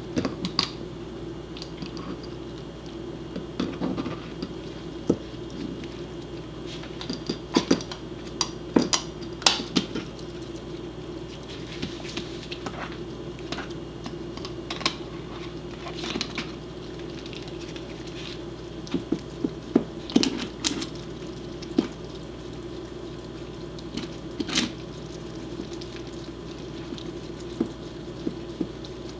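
A corgi working an egg with its mouth on the floor: scattered light taps and clicks of the eggshell against teeth and floor, coming in a few short clusters. A steady low hum runs underneath.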